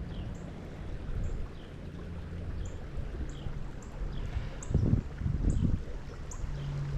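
Wind rumbling on the microphone over running stream water, with stronger gusts about five seconds in. Short, high, falling chirps repeat throughout.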